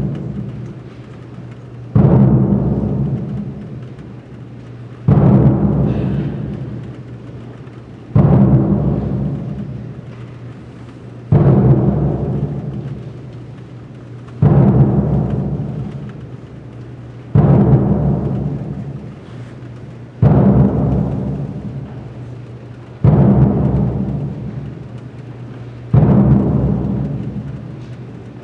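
Slow, even beats of deep percussion, one about every three seconds, each struck sharply and ringing away over the following seconds above a steady low hum.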